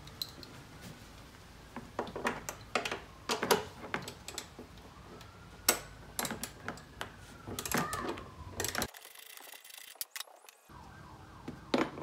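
Irregular metallic clicks and knocks of a socket ratchet wrench with a 13 mm socket working loose the bolt of a car battery's hold-down bracket, then the tools and the steel bracket set down on a rubber trunk mat.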